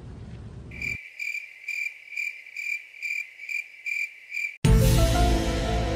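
Cricket chirping, a steady high trill pulsing about twice a second, the comic 'crickets' sound effect. About four and a half seconds in it cuts off and music starts.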